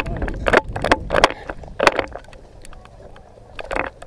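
Footsteps crunching on dry ground, about one step every half to two-thirds of a second, over a low rumble of wind or handling on the microphone.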